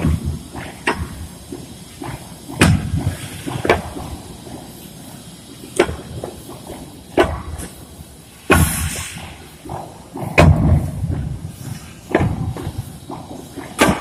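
Concrete hollow blocks being stacked by hand, with irregular knocks as each block is set down on the pile, one every second or two.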